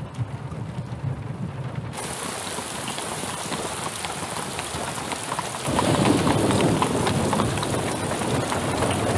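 Heavy rain pouring: muffled for the first two seconds, then an open, full downpour from about two seconds in, growing louder and fuller about six seconds in.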